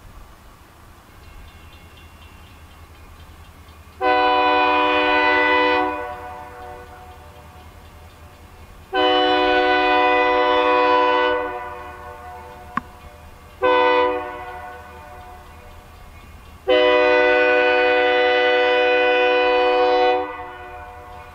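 Air horn of an EMD SD40-2 diesel locomotive blowing the grade-crossing signal: two long blasts, a short one, then a final long one, each a chord of several notes. A low steady rumble lies underneath.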